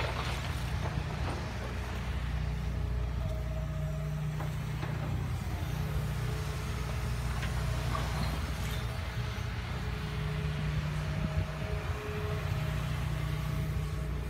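Hitachi Zaxis 210 excavator's diesel engine running steadily, a low drone with a faint higher whine coming and going a few times.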